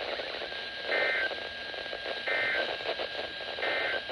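Hiss of a NOAA weather radio receiver with a faint steady high tone, broken by three short electronic beeps about 1.3 seconds apart.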